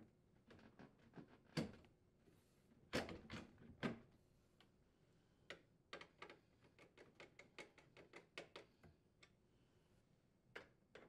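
Faint clicks and knocks of a refrigerator freezer drawer front being set onto its metal glides, loudest about a second and a half in and in a cluster around three to four seconds in. A run of light ticks follows as the drawer front's screws are driven in with a nut driver.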